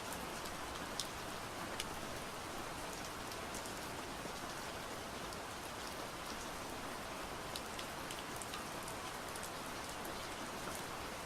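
Steady gentle rain falling, an even patter with scattered individual drops ticking.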